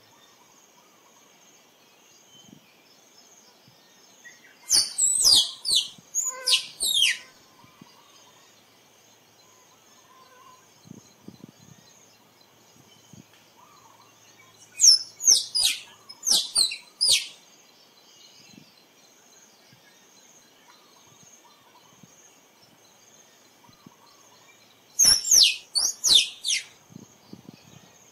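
Tree squirrel calling: three bouts of rapid, high-pitched chirps, each note sliding steeply downward, the bouts about ten seconds apart.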